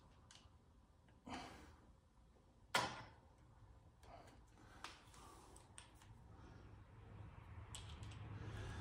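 Socket wrench being handled at a motorcycle's clutch-cover bolts: scattered light clicks and one sharp metallic clack about three seconds in.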